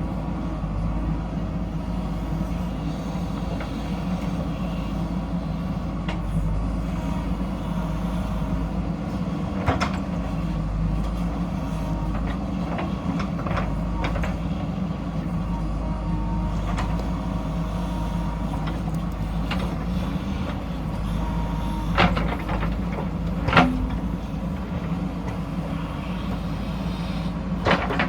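JCB backhoe loader's diesel engine running steadily under work, with a few sharp knocks, two of them a second or so apart about three-quarters of the way through.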